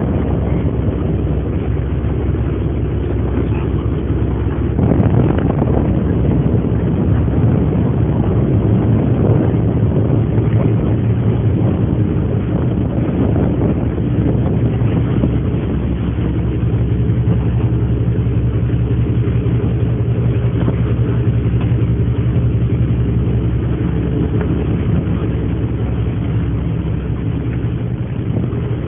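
Car ferry's engine running with a steady low drone that grows stronger about halfway through.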